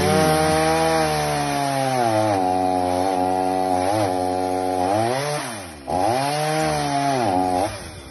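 Chainsaw running at full throttle while cutting into a tree stump and its roots, its pitch sagging as the chain bites in. About five seconds in it is let off briefly and revs straight back up, then stops near the end.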